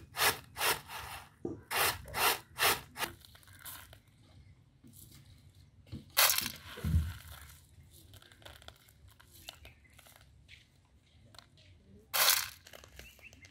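Dried beans rattling in a woven bamboo winnowing tray as it is tossed, about three tosses a second for the first three seconds. After that, softer small rattles of hands picking through the beans, with a louder shake of beans about six seconds in and again near the end.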